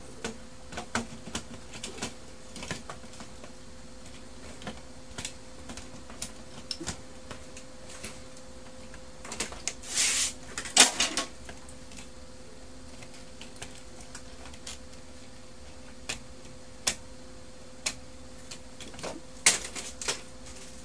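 Plastic and metal parts of a Brother DCP-1615NW laser printer being handled during disassembly: scattered clicks and knocks, with a louder scraping clatter about ten seconds in and another burst of clicks near the end. A faint steady hum runs underneath.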